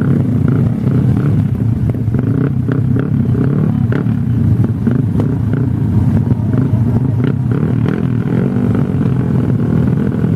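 Motorcycle engines running in a steady, loud low rumble, with no clear rev peaks or breaks.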